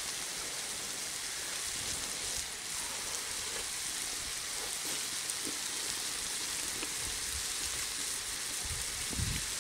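Frying pan of ground pork and vegetables sizzling steadily on a wood-fired clay stove: an even frying hiss.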